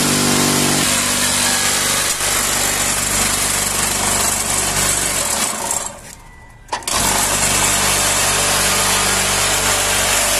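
Electric vibration motors of a cinder-block making machine running loud and steady with a hum, shaking the concrete in the mould to compact the blocks. About six seconds in they are switched off and wind down, and less than a second later they start up again at full strength.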